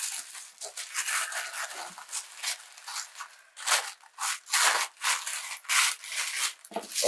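Tissue paper rustling and crinkling as hands fold it and smooth it down around a parcel, in a run of short swishes that grow louder in the second half.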